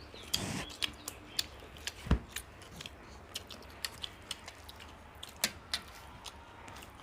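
Close-up eating sounds: chewing with frequent small wet mouth clicks and smacks as mutton biryani is eaten, with a single dull knock about two seconds in.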